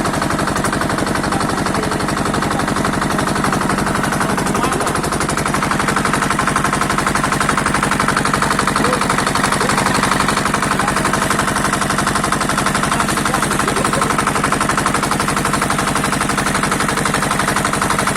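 Small engine running steadily at a fast, even chugging pulse, with open-exhaust beats that come too fast to count.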